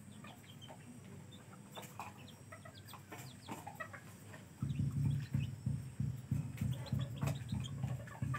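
Sebright bantam chicks peeping in short high chirps as they feed. About halfway through, a louder low, rhythmic pulsing sound comes in at several beats a second and carries on, drowning the chirps.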